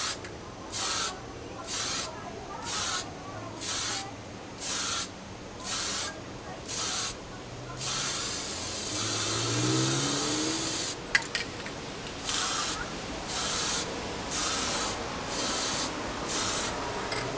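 Aerosol spray paint can hissing in short bursts, about one a second. Near the middle there is a longer continuous spray of about three seconds, then a sharp click, and the short bursts start again.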